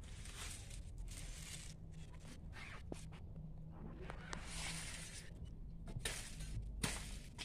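Coconut palm fronds rustling and scraping in several bursts as they are pushed about and cut, with a few small clicks and a sharp crack near the end.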